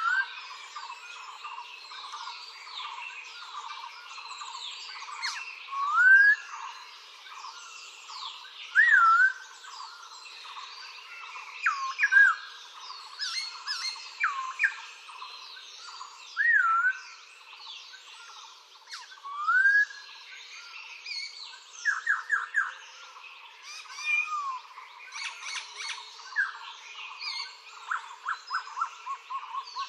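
Recorded birdsong: several birds chirping and trilling together. One bird repeats a loud looping whistle that rises and then falls, every few seconds, and rapid runs of short notes come twice near the end.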